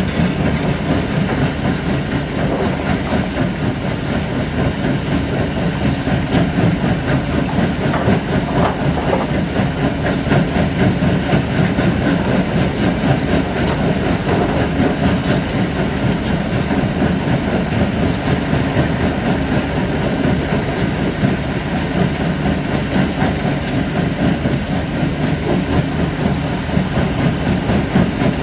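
Stone-crushing plant and diesel excavators running together: a loud, steady engine drone with a continuous fast rattle of broken rock.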